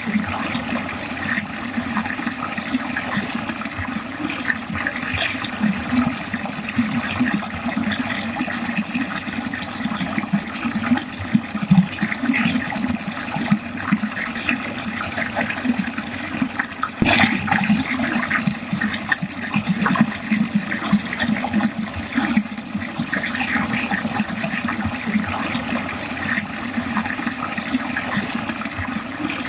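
Water pouring steadily down a drain, a continuous rush with no break.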